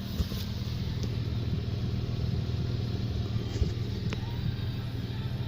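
Holden Commodore's 3.6 V6 engine idling steadily, with a few faint clicks over it.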